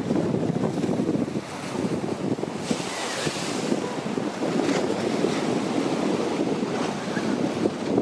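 Choppy sea waves washing and breaking against a concrete breakwater, with wind buffeting the microphone.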